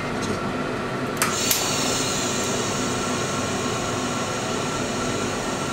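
TIG welder tacking a 3-inch stainless steel turbo pipe: a steady hiss of the arc, with two short clicks about a second in.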